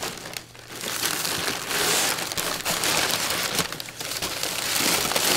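Crumpled brown paper packing being pulled out of a cardboard box, rustling and crinkling in several loud bursts.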